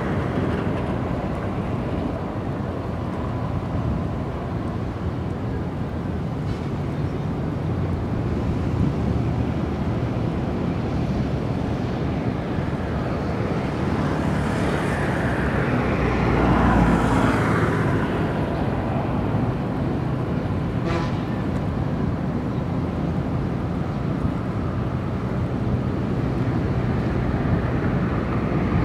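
Wind on the microphone over a steady low rumble of ship engines, swelling briefly a little past halfway, with a single sharp click about three quarters through.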